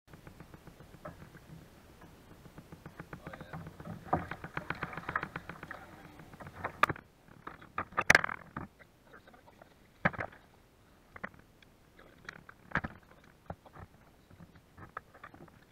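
A pike thrashing and splashing at the surface as it is scooped into a landing net, then a sharp knock about 8 s in as the net comes aboard. Scattered knocks and rattles follow as the netted fish and net are handled against the plastic kayak.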